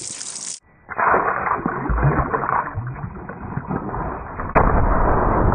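Water sloshing and splashing in a plastic tub around a hand holding a submerged Glock 17, with a few dull knocks. About four and a half seconds in, a sharp crack is followed by louder, heavier splashing.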